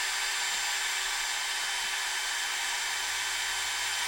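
Handheld electric power tool running at a constant speed: a steady whine over a loud hiss that holds unchanged throughout.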